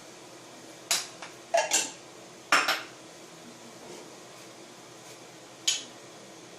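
A metal utensil clinking against a cooking pot: sharp clinks in two quick pairs between one and three seconds in, and a single one near the end.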